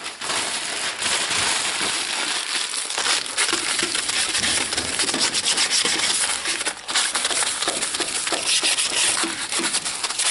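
Crumpled newspaper rubbed over the glass door of a wood-burning stove to polish off the last of the soot: continuous scratchy rubbing made of many short strokes.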